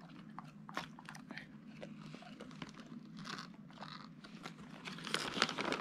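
Dogs crunching and chewing dense freeze-dried lamb liver treats: a scatter of short, sharp crunches, busiest near the end.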